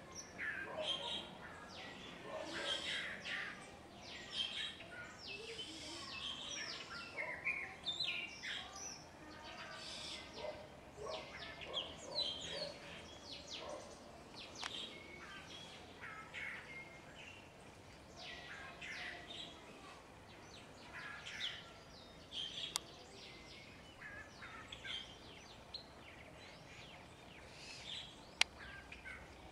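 Long-tailed mockingbird singing a long, varied string of short chirps and phrases, busier in the first part and sparser later on. A sharp click sounds near the end.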